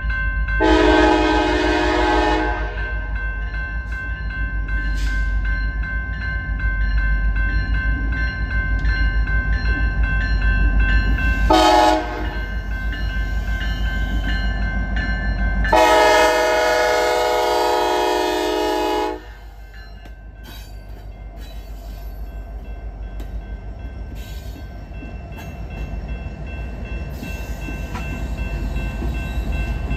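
A Norfolk Southern diesel locomotive's air horn sounds the grade-crossing signal: a long blast, a short one, then a long one, over the steady rumble of the diesel engines as the locomotives approach and pass. A grade-crossing bell rings throughout.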